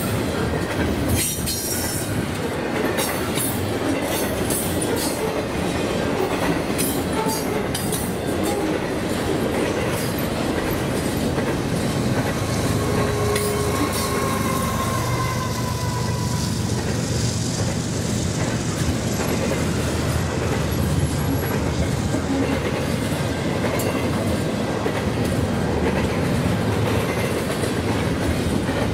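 Double-stack container train rolling past at speed: steady wheel-on-rail noise, with sharp clicks of wheels over rail joints in the first few seconds. About halfway through, a mid-train GE ES44AC distributed-power locomotive passes under power, adding a deeper engine rumble.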